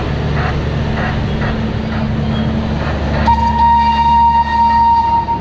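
The Botchan Ressha replica steam tram sounds its whistle: one steady, high toot lasting under two seconds, starting a little past halfway, with a short tail, over a steady low rumble.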